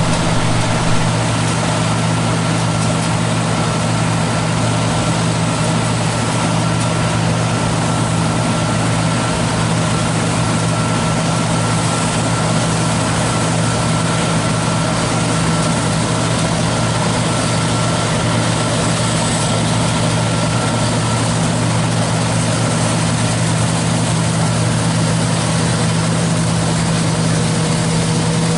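John Deere T670i combine harvester running steadily at working speed while cutting wheat, with its straw chopper engaged: an even, heavy engine drone under a dense mechanical rush. A thin high whine runs through most of it and fades out about three-quarters of the way through.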